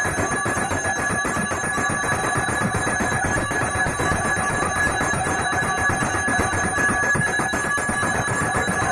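Temple bell rung rapidly and without a break, a steady stream of strokes over a constant ringing tone.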